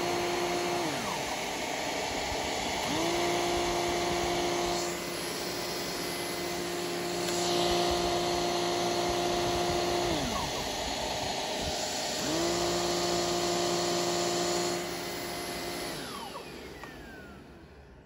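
Jimmy BX7 Pro UVC bed vacuum cleaner running close up: a steady rush of suction air with a humming motor tone that dips away and returns twice. Near the end the machine winds down and fades out.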